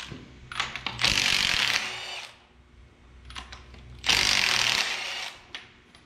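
Cordless power tool spinning a bolt on the cylinder head of a 12-valve Cummins, run in two bursts of about a second each, with light metal clicks of handling between.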